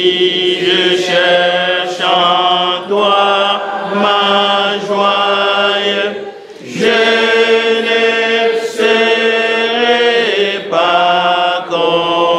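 Unaccompanied chanting voices: long held sung notes with no instruments, breaking off briefly about six and a half seconds in and again near the end.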